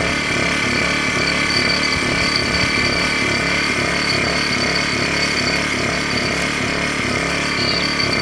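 A motor or engine running steadily, with a regular throb beneath a high whine.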